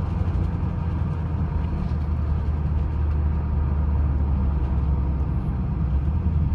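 Chrysler 300 SRT's 392 Hemi V8 running in a steady, low drone at cruise, with tyre noise from a wet road.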